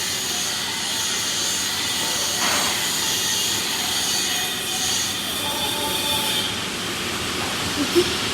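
Stick-welding arc crackling and sizzling steadily, with a sharp pop near the end.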